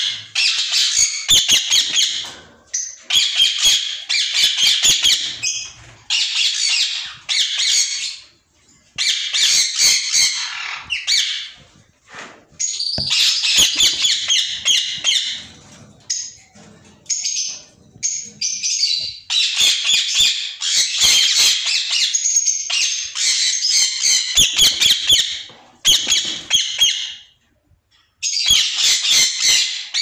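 White ringneck parakeets squawking in repeated harsh bouts of a second or two each, with short gaps and sharp clicks in between.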